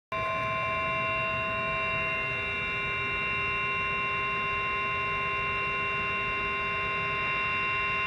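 Emergency Alert System attention tone through a clock radio's speaker: a steady electronic tone held without change, the signal that an emergency warning is about to be read.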